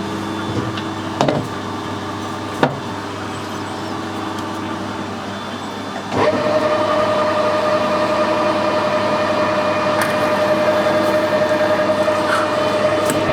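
Metal lathe running steadily, with a few sharp knocks in the first three seconds. About six seconds in it gets louder and a steady higher whine joins the hum.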